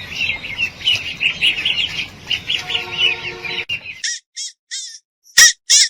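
Birds chirping rapidly, dozens of short chirps over a noisy background, with a lower call about three seconds in. About four seconds in it cuts to a run of short, high-pitched squawks, the loudest near the end.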